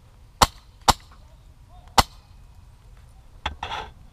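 Airsoft gunfire: three sharp single shots in the first two seconds, then another shot followed by a short noisy burst near the end.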